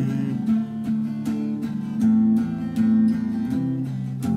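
Acoustic guitar strumming chords in an instrumental gap between sung lines of a song, with no voice.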